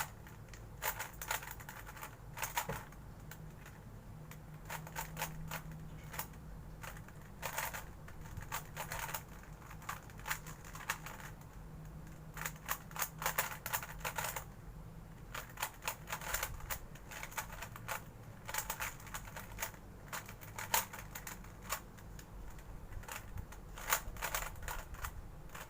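Plastic Rubik's cube being turned by hand: quick runs of clicking layer turns with short pauses between them.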